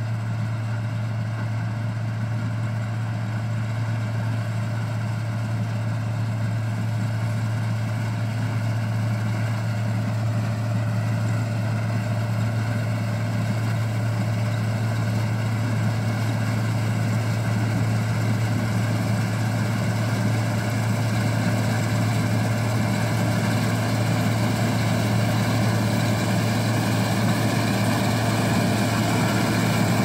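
Case IH 2188 combine harvesting soybeans: its diesel engine and threshing machinery running with a steady drone, growing slowly louder as the combine approaches.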